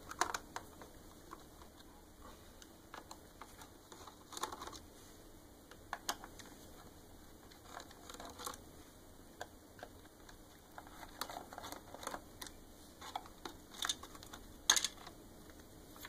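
Scattered light clicks and plastic rattles from a Phillips screwdriver working screws out of a Roomba 550's plastic bottom plate, with hands handling the plate. There is a sharper clack near the end.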